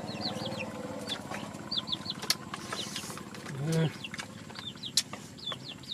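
Chicks peeping again and again in short, high, falling calls over a low steady hum, with a few sharp clicks.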